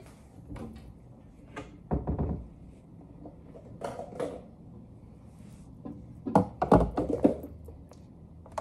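Kitchen handling sounds as a cabinet is opened and things are taken out and set on the counter: scattered thunks and clicks, the loudest a dull thunk about two seconds in and a quick run of clicks near the end.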